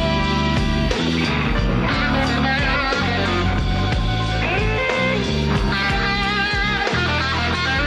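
Slow blues played live by a band: a Telecaster-style electric guitar plays a lead line with bent notes over bass and rhythm.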